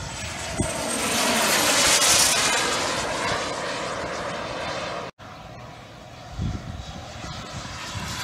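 Engines of radio-controlled scale model warbird airplanes flying past, the sound swelling to a peak about two seconds in and then fading as they pull away. The sound cuts out for an instant about five seconds in and comes back quieter.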